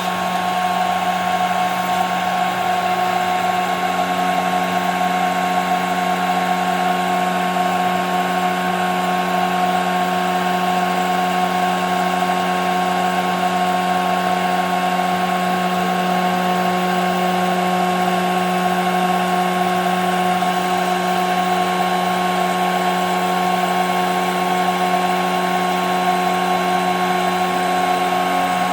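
CNC router spindle running with a steady whine, with fainter tones that come and go.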